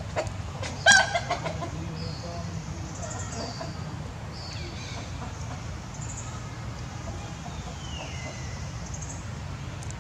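Chickens clucking, with a loud burst of cackling about a second in, then faint high bird chirps and a falling whistle over a steady low hum.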